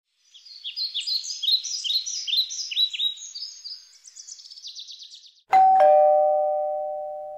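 High, quick chirps with short downward-sweeping notes, like bird song, ending in a faster trill. About five and a half seconds in, a two-note ding-dong chime sounds, a higher note then a lower one, and rings on, fading slowly.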